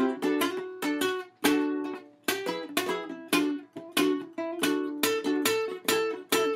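Ukulele playing an instrumental passage, notes and chords plucked several times a second, each ringing briefly and fading before the next strike.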